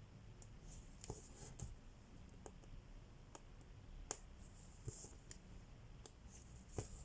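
Cross-stitching by hand: faint, sharp clicks of the needle piercing the fabric, about one a second, with a soft rasp of thread being drawn through between them.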